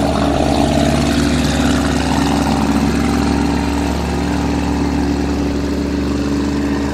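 Engine of a small passenger motorboat running steadily at an unchanging pitch.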